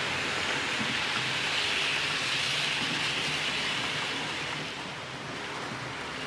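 HO-scale model train passing close by, a model Re 460 locomotive hauling cars: a steady rolling rattle of the wheels on the rails that swells about two seconds in and dies down after about four seconds as the train moves away.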